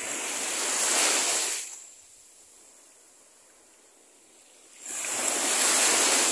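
Small waves washing up onto a sandy beach: two swells of surf about five seconds apart, each rising, cresting and fading, with a faint hiss of sea between them.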